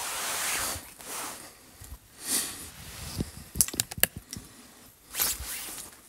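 Footsteps and rustling through dry brush and bare branches, in uneven bursts, with a quick cluster of sharp cracks about three and a half seconds in.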